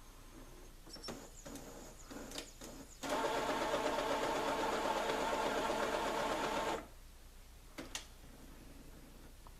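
Brother inkjet printer running a print-head cleaning cycle: a few mechanical clicks, then a steady motor whir for nearly four seconds that starts and stops abruptly, then another click.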